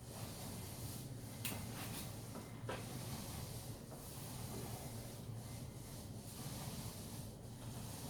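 Wet fingertip rubbing along a freshly caulked joint, smoothing the gap filler: a soft rubbing that comes and goes in repeated strokes.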